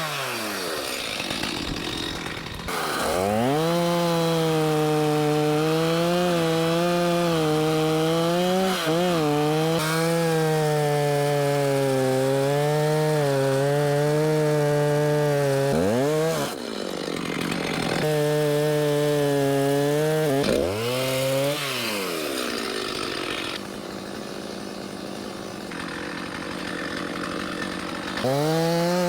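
Stihl Farm Boss 290 two-stroke chainsaw cutting into a pear trunk to make the face notch and back cut that fell the tree. Under load its pitch sags and recovers in the wood; several times it drops off and revs back up, and near the end it runs quieter.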